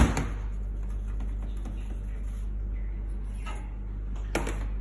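Steady low hum with faint handling clatter, and one sharp knock near the end, like a metal milk jug set down on a hard counter.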